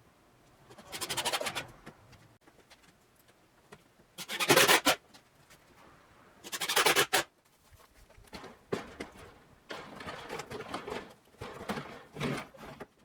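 Scraping and rubbing on a storm shutter (amado): three loud drawn-out scrapes, about a second, four and a half seconds and seven seconds in, then a run of shorter, quieter rubbing strokes.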